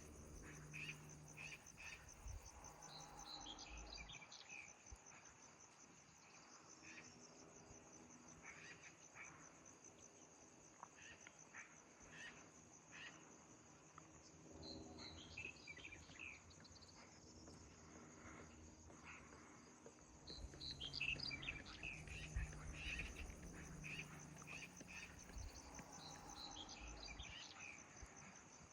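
Faint forest ambience: a steady high trill of crickets or other insects, with scattered bird chirps coming in short clusters. A few soft low thumps come about twenty seconds in.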